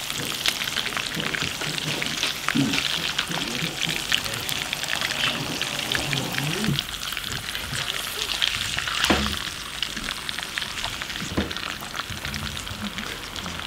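Pieces of raw eel sizzling and crackling in hot oil in a small cast-iron skillet over charcoal, cooking as an eel ajillo. Chopsticks turn the pieces now and then.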